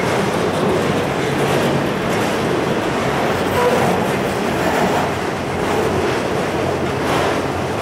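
Autorack freight cars rolling past at close range: a steady rumble and rattle of steel wheels on rail, with occasional clacks.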